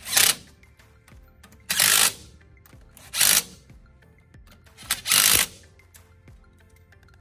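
Cordless impact driver tightening the bolts that hold the spindle to a Jeep front axle's steering knuckle, in four short bursts spread about a second and a half apart.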